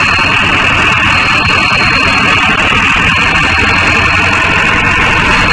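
Mahindra Arjun Novo 605 DI tractor's diesel engine running steadily while the tractor drives along, a loud, even drone with no change in pace.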